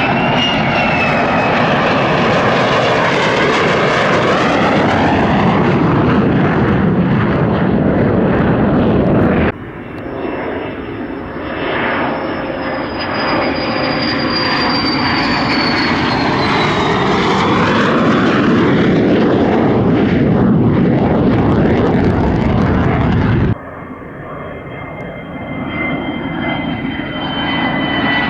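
Lockheed Martin F-35A's single Pratt & Whitney F135 turbofan passing overhead, a heavy jet noise with a high whine that falls slowly in pitch as the jet goes by. The sound changes abruptly twice, at about 9 seconds and about 23 seconds, as a new pass begins.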